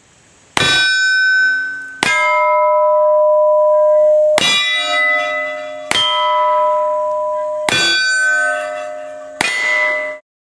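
Webley Mk IV .38 top-break revolver firing six shots of .38 Smith & Wesson in steady succession, about one every two seconds. Each shot is followed by a long metallic ringing that lasts until the next one.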